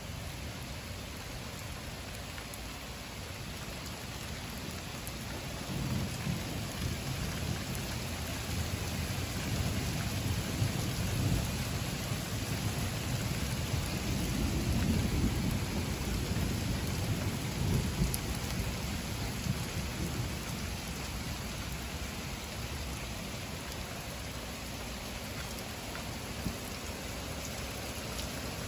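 Heavy rain falling steadily on pavement, with a long low rumble of thunder that swells about a fifth of the way in and fades out over some fifteen seconds.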